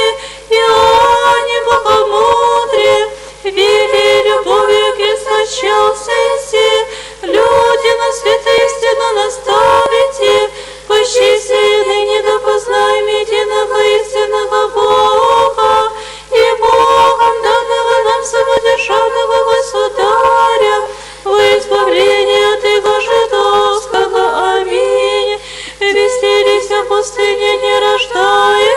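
Orthodox church choir singing unaccompanied liturgical chant in several voices, long held notes in phrases of a few seconds with short breaks between them. Heard over a radio broadcast, with a faint steady low hum beneath.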